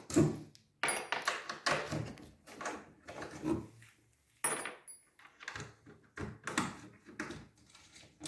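Irregular knocks, rubs and scrapes from handling the double bass's detachable laminated rib panel.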